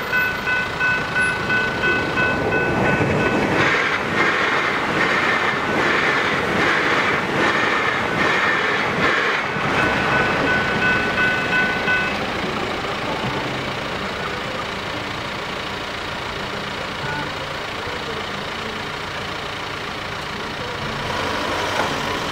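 Level crossing's electronic bells (General Signals Type 3 e-bells) ringing in a steady pulsing tone, with a train rushing past over the crossing from about four to ten seconds in. The bells stop about twelve seconds in, leaving a steady hum of road traffic.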